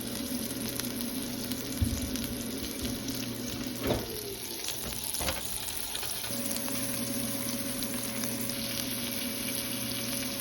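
Hot frying pan sizzling steadily, with a few light knocks about two, four and five seconds in and a faint steady hum underneath.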